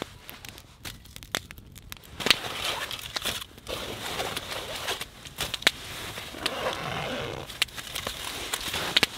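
Rummaging through a fabric backpack: rustling cloth and crinkling aluminium foil, with scattered clicks and knocks, much busier from about two seconds in.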